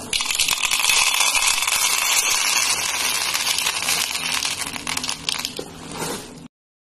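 Dry elbow macaroni poured from a plastic packet onto a ceramic plate: a dense rattle of hard pasta pieces clattering onto the plate and each other. It cuts off suddenly about six and a half seconds in.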